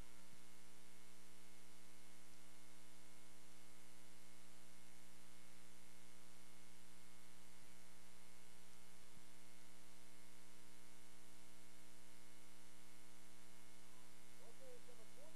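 Steady electrical hum with hiss on an old videotape recording's sound track. A few faint, brief wavering tones come through near the end.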